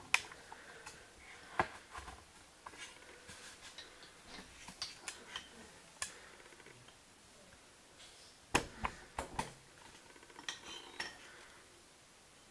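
Scattered light clicks and knocks, with a quick cluster of four sharper ones about eight and a half seconds in.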